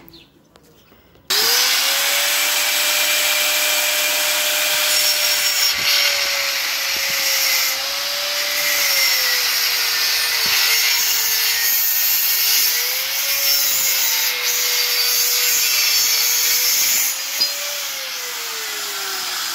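Handheld angle grinder switched on about a second in and cutting through a metal bar, its high motor whine sagging several times as the disc bites under load. Near the end it is switched off and the whine winds steadily down as the disc spins down.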